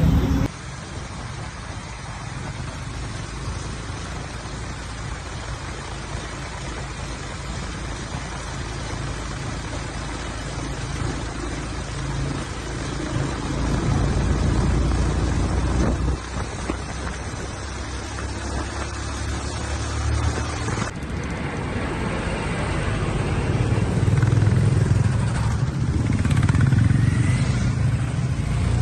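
Several motorcycles riding together along a road, engines running at cruising speed with road noise. The engine sound grows louder near the end as bikes come close.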